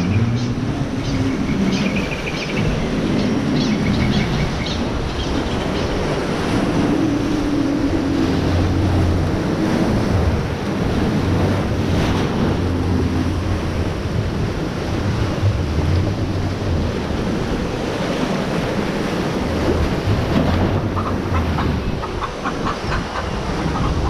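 Rushing, churning whitewater of a river rapids ride flowing around a round raft, a steady loud wash of water.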